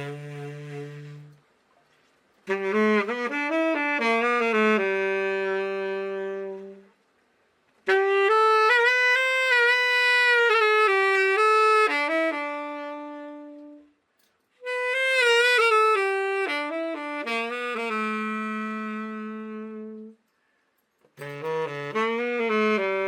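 Selmer Super Action 80 Series III tenor saxophone played solo in four slow melodic phrases, each ending on a long held note, with short pauses between: a play test after a full overhaul.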